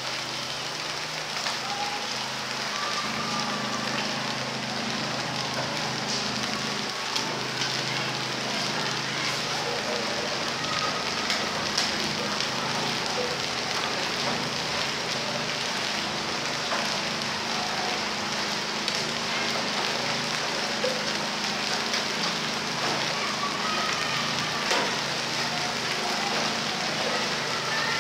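Heavy rain pouring onto a flooded flat rooftop: a steady hiss with a dense patter of drops splashing into the standing water.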